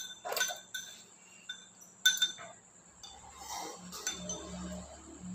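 A utensil clinking and scraping against a ceramic bowl as the last of the noodles are eaten from it: several sharp, ringing clinks, the loudest about two seconds in.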